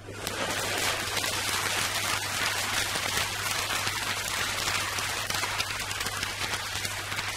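Audience applause on a vinyl LP of live comedy monologues playing on a turntable. It starts suddenly and holds steady, with a low mains hum beneath.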